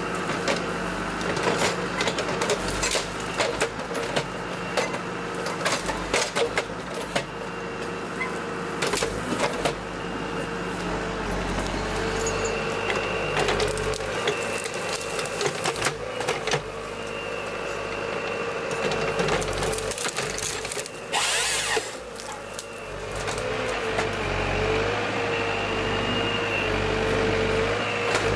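Forest harvester with a Kesla 25RH head working: the machine's engine and hydraulics run with a steady whine that shifts slightly in pitch, while branches and wood crack and snap many times over the first ten seconds or so. A short harsh burst comes about 21 seconds in.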